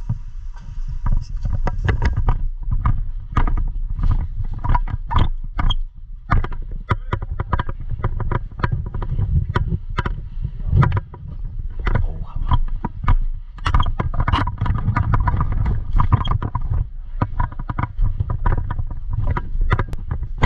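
Movement and handling noise on a worn GoPro action camera: a continuous low rumble with many irregular sharp clicks and knocks.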